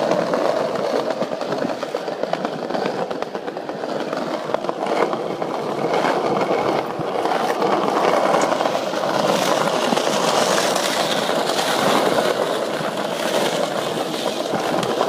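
Skateboard wheels rolling over stone paving slabs: a steady, continuous rolling rumble.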